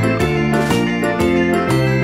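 Background music: a bright, upbeat children's tune on keyboard instruments with a steady beat.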